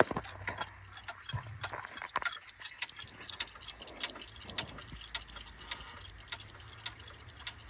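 Scattered, irregular small clicks and taps, several a second.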